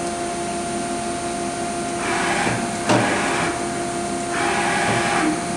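Mazak VCN 410A-II vertical machining center moving its Z axis at rapid traverse in manual jog mode over a steady machine hum. There are two surges of axis-drive noise, one about two seconds in ending in a sharp click and another near the end.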